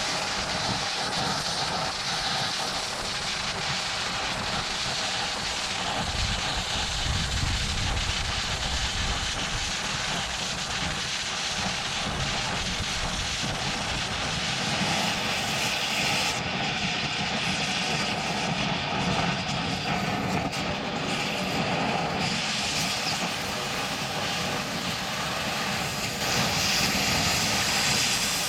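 Oxy-acetylene cutting torch running with a steady hiss as its oxygen jet cuts through thick steel.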